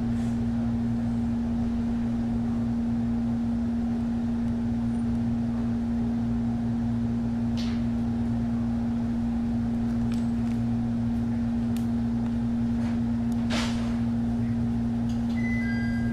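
Inside a Jomo Electric Railway 700-series electric train standing at a station: a steady hum from the car's onboard equipment, with two brief hisses. Near the end a two-note electronic door chime begins, as the doors close for departure.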